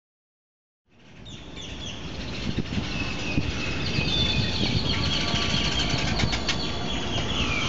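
Silence, then outdoor ambience fading in about a second in: a steady low rumble with many birds chirping in the trees, the chirping growing denser from about halfway.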